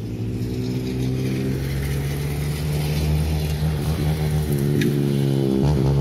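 A motor vehicle's engine running with a low, steady hum that grows steadily louder, its pitch starting to waver near the end.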